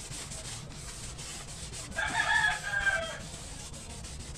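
A cloth rag rubbing over the steel face of a truck engine's flywheel, wiping off grease before the clutch goes on. A rooster crows once, for about a second, near the middle and is the loudest sound.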